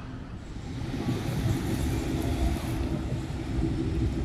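Boat engine running with a steady hum, under wind buffeting the microphone and the wash of river water. It comes in about a second in and stays level.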